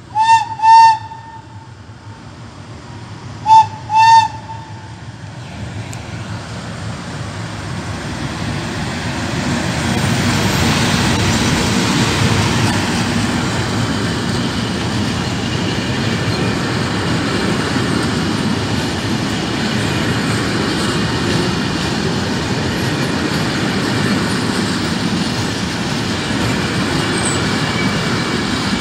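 An FS E.652 electric locomotive sounds its horn in two pairs of short blasts as it approaches. Then comes the rising rumble of a freight train of closed wagons rolling past on the rails, which grows steady and loud from about ten seconds in.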